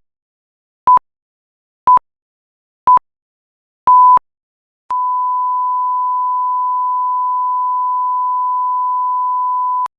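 Censor bleep sound effect: a pure 1 kHz sine tone, first as three short beeps about a second apart and a slightly longer one, then one long steady bleep of about five seconds that cuts off sharply near the end.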